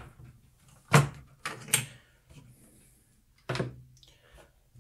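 A few sharp knocks and clunks of objects being handled and set down on a wooden workbench: one about a second in, two close together half a second later, and another past the three-second mark.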